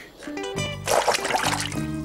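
Cartoon background music: a short phrase of held notes stepping up and down, coming in after a brief hush.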